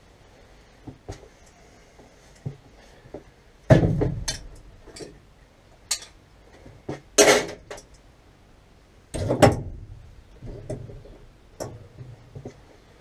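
Metal pump parts and tools clinking and knocking as a bore pump's top assembly is put back together: scattered clanks, the heaviest about four and nine seconds in, with a brief scrape near seven seconds.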